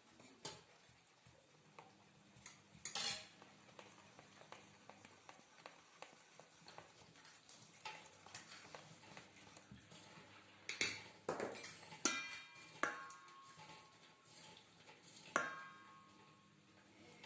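A spoon clinking and scraping in a mixing bowl as flour is stirred into the wet dough mixture, with several sharper knocks that ring briefly in the second half.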